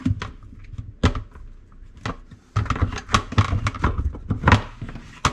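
Plastic parts at the bottom of a dishwasher tub being twisted and pried loose by hand: a run of clicks, snaps and light knocks of plastic against plastic and the stainless tub, busiest about halfway through.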